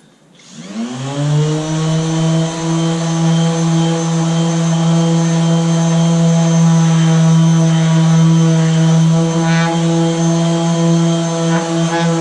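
Electric sander with a fine abrasive pad spinning up within the first second, rising in pitch, then running steadily at an even high hum while sanding a liquid-metal coating.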